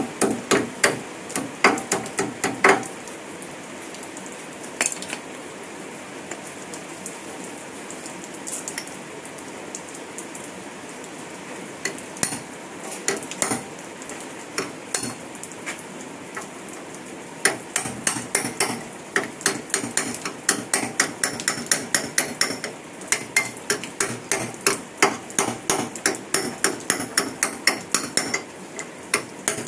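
Hammer tapping a new oil seal into the rear axle's wheel-bearing housing. A quick run of taps comes at the start, then a few scattered taps, then a long steady run of about three taps a second from just past halfway.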